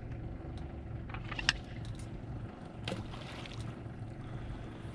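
Pontoon boat's motor running low and steady, with two sharp clicks: a louder one about one and a half seconds in and another near three seconds.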